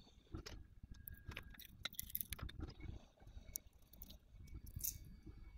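Faint scattered clicks and scrapes of hard plastic being handled and peeled: the clear screen cover of a handheld thermal camera being worked loose from its case after heating, over a low rumble.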